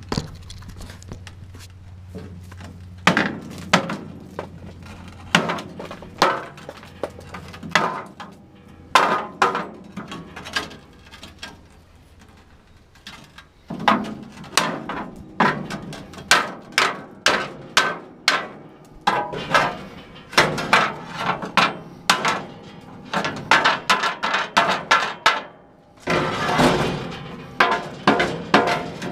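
Repeated knocks and clanks on the old Massey Ferguson MF12 baler's metal, uneven in spacing, with quick runs of several strikes a second and a denser clattering stretch near the end.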